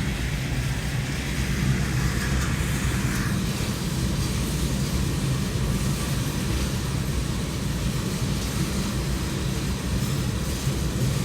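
Coal train rolling past with a steady low rumble.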